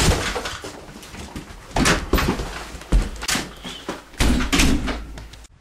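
Several irregular knocks and thumps, sharp and scattered, with no voices.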